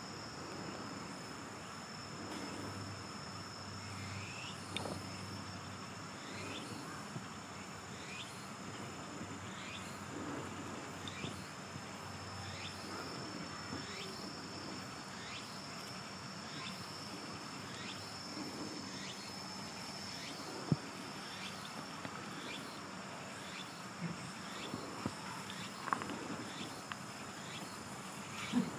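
Insects singing steadily in high, unbroken trills, with a run of short falling chirps about once a second and a few sharp knocks, the loudest about two-thirds of the way through.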